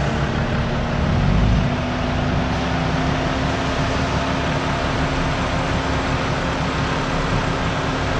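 Four-wheel drive moving slowly along a dirt bush track, with steady engine and tyre noise and a brief heavier low rumble about a second in.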